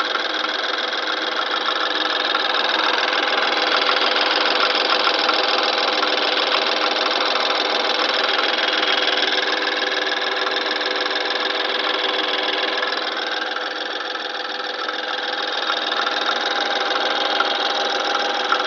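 BMW N20 turbocharged four-cylinder petrol engine running shortly after start-up with a steady rattle, which the owner suspects may come from the turbo's wastegate flap.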